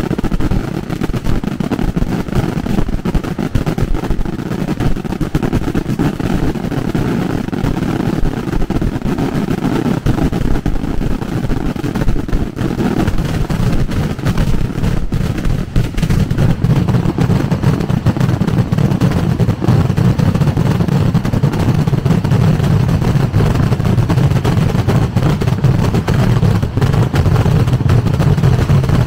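Fireworks barrage: rapid explosions so close together that they merge into a continuous rumble, getting heavier and deeper about halfway through.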